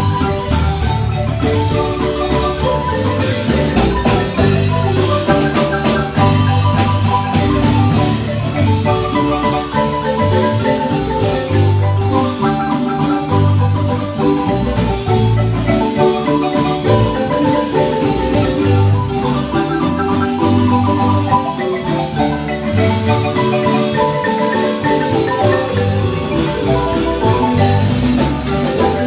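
A large wooden marimba played by three players at once, with quick melody and chord notes over deep bass notes that repeat in a steady dance rhythm.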